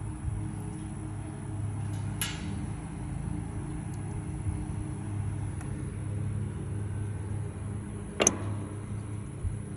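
Aermotor windmill running over a steady low rumble, giving two sharp clunks: one about two seconds in and a louder one near the end. The clunks are the clunking noise the windmill is making.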